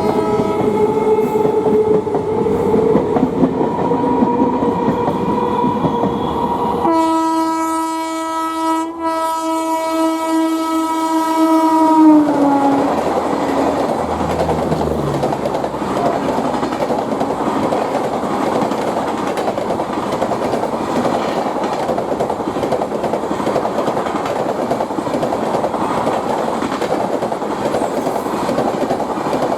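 Indian Railways express train passing at speed. Its locomotive horn sounds, then gives a long, loud blast that drops in pitch about twelve seconds in as the engine goes by. After that the coaches run past with a steady rumble and clatter of wheels on the rails.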